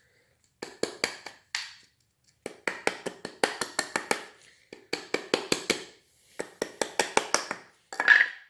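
Bursts of rapid sharp metallic taps and clicks, several a second, with short pauses between bursts, as a tight-fitting metal part of a brake cable connector is worked into place.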